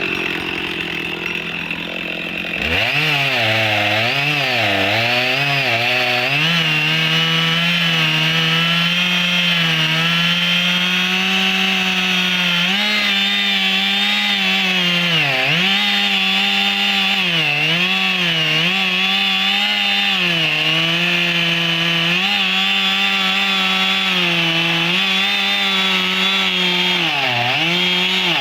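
Husqvarna 55 two-stroke chainsaw cutting through thick logs. It opens up to full throttle about two and a half seconds in. Its engine note then sags and recovers again and again as the chain loads up in the wood.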